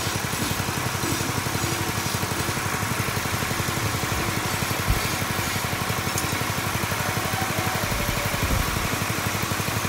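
Small single-cylinder petrol engine running steadily with an even, fast pulse, belt-driving an empty YM 3000 grass chopper on a no-load test run to check that nothing is loose. A single soft knock comes about five seconds in.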